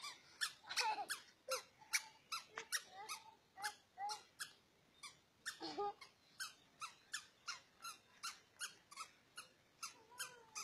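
A toddler's squeaky shoes squeaking with each step, about three squeaks a second in an even walking rhythm, with a few short gliding chirps in between.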